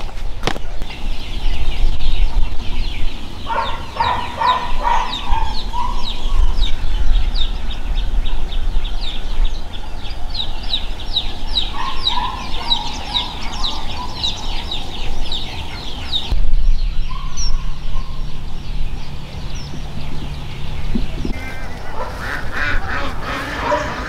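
Domestic poultry calling: a long run of quick, high, repeated peeps, with lower clucking or honking calls about four seconds in, again around twelve seconds, and near the end.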